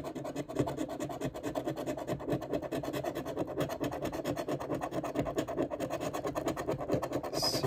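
A coin scratching the coating off a scratch-off lottery ticket in rapid back-and-forth strokes.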